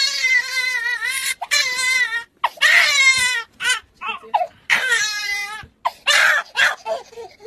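Exaggerated, comic wailing: a voice crying loudly in a series of long, high, wavering sobs with short breaks between them.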